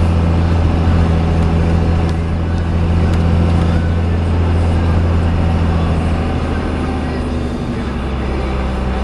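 Steady low drone of a vehicle's engine as it is driven, dropping in pitch about seven and a half seconds in as it slows.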